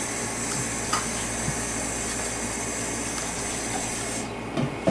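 Kitchen tap running in a steady hiss, which cuts off suddenly near the end.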